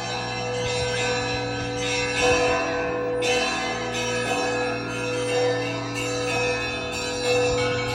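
Russian Orthodox church bells ringing in a full peal: several bells sound at once, deep tones held long underneath while higher bells are struck again every second or so.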